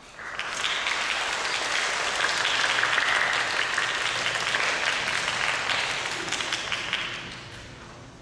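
Audience applause, beginning abruptly, holding steady for several seconds, then dying away near the end.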